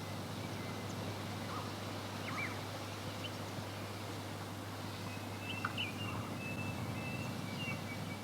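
Outdoor ambience: a steady rushing background noise with a low hum, and faint scattered bird chirps, a few of them close together a little past the middle.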